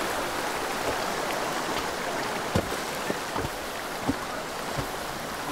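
Steady rush of floodwater, with four dull thuds about three-quarters of a second apart in the second half, as a heavy wooden pole is pounded down.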